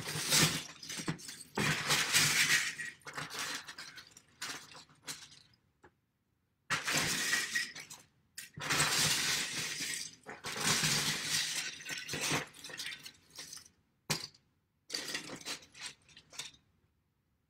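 A hand digging through a bin of loose plastic Lego bricks: the bricks clatter and clink against each other in long stretches, with a couple of short pauses.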